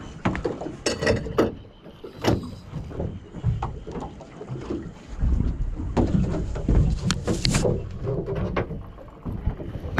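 Small boat adrift at sea: water sloshing against the hull with irregular low rumble and scattered sharp knocks.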